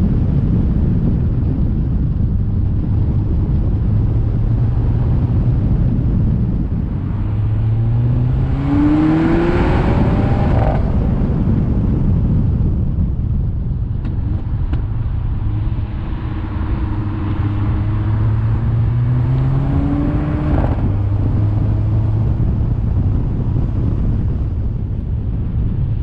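Car engine and tyre rumble while driving, with the revs climbing steadily twice, each time cutting off abruptly.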